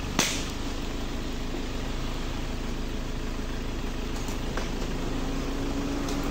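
Steady outdoor background noise with a faint low hum that grows stronger near the end, and one sharp crack just after the start.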